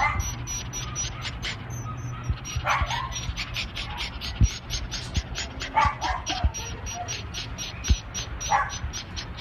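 Small tricolour Chihuahua mix panting fast, about five breaths a second, with a few short whines mixed in. A couple of sharp thumps stand out, and a steady low hum runs underneath.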